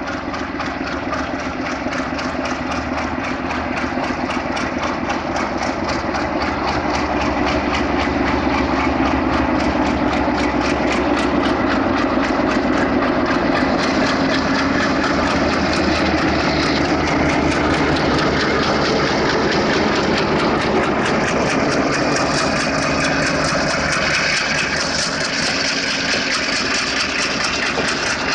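Diesel-electric locomotive engine running with a steady low drone and a fast even pulse, growing louder over the first several seconds and then holding steady.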